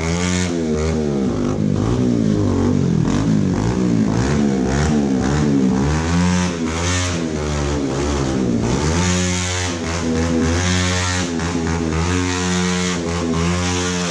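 Motorcycle engine with a loud exhaust, revved again and again in quick throttle blips, its pitch rising and falling with each blip.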